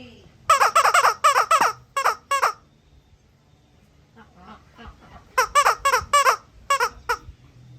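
Squeaking as an eclectus parrot plays with a squishy toy: two quick runs of short, high squeaks, about three a second, with a pause of a few seconds between them.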